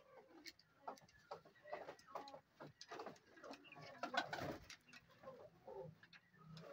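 A flock of Indian peafowl making faint, scattered short calls and clucks.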